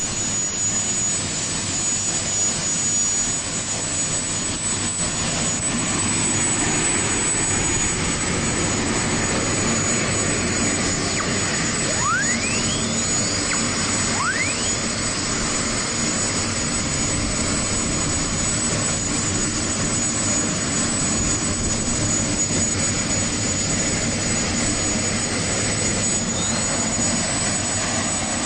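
Gas turbine engine of a turbine-powered boat running steadily, a dense rushing noise with a constant high-pitched whine. Two brief rising whistles sound near the middle.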